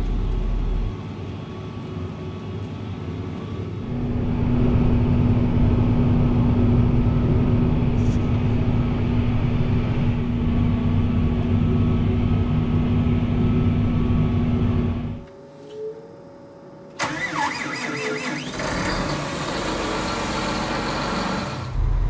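Farm tractor engine running under load, heard from inside the cab while pulling a disk through snow, with a steady low hum through its loudest stretch. Shorter stretches of other vehicle engine sound come before and after it.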